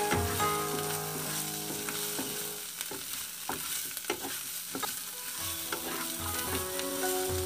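Pork and vegetables sizzling in a hot nonstick frying pan as they are stirred, with a few clicks of the spatula against the pan in the middle. Faint background music sounds at the start and again near the end.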